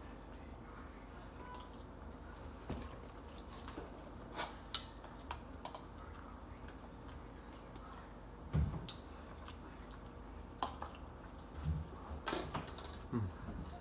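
Someone eating chicken nuggets: scattered small clicks and taps of chewing and handling the food, with a few soft low thumps in the second half.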